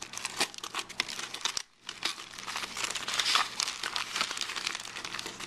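Aluminium foil and a plastic bag crinkling as hands fold and press them around a small stack of soft candies, with many small crackles. The crinkling breaks off for a moment about one and a half seconds in.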